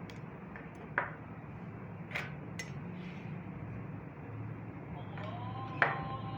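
A few sharp knocks, the loudest about a second in and near the end, over a steady low hum. Held musical tones come in about five seconds in.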